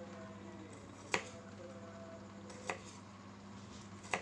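Three sharp clicks, about a second and a half apart, of a knife coming down on a cutting surface as garlic cloves are cut into small pieces, over a faint steady hum.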